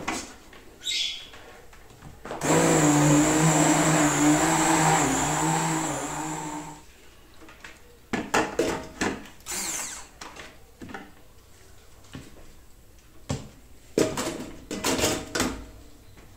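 Electric blender blending milk, banana and ora-pro-nobis leaves, starting about two seconds in and running steadily for about four seconds with a low hum and a high whine, then winding down. Afterwards a series of knocks and taps as the blender jar and a cup are handled on the counter.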